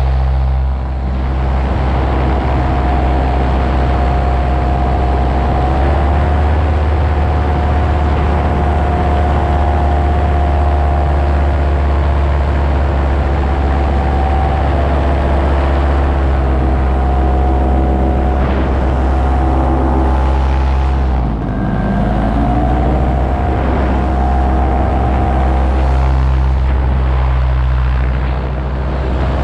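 A paramotor's engine and propeller drone steadily in flight. About two-thirds of the way through the throttle is eased back for a moment: the pitch drops, then climbs back to cruise.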